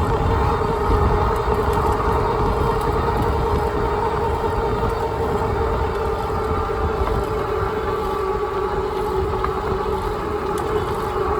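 All-wheel-drive e-bike's hub motors whining steadily at cruising speed, with wind rumbling on the microphone.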